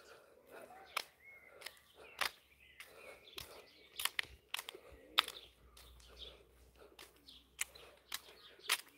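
Footsteps on an asphalt path, about three steps every two seconds, with faint birds chirping in the background.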